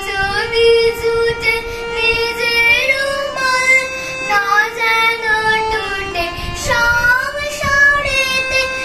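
A young girl singing with her own harmonium accompaniment: her voice slides and wavers over the harmonium's held reed notes, which change pitch in steps beneath the melody.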